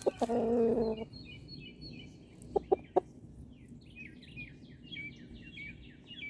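A pet chicken gives a drawn-out call for about a second, then two sharp taps, then a steady run of quick, high, falling chirps from a small bird over the second half.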